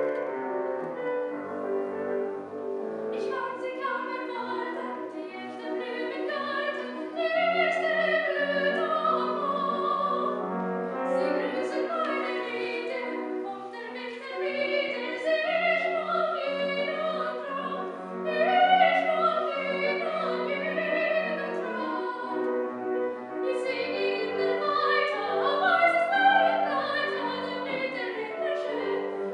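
Soprano singing a German art song with piano accompaniment. The piano plays alone for about the first three seconds, then the voice comes in over it.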